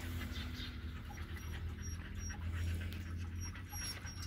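Pit bull mother and her nursing puppies making quick, irregular soft noises: suckling and the mother panting. A steady low hum runs underneath.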